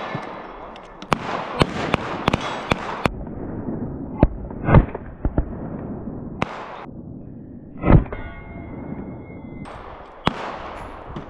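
Pistol gunfire: an irregular string of sharp shots, some in quick pairs, each with an echoing tail. Two louder, deeper shots come about halfway through.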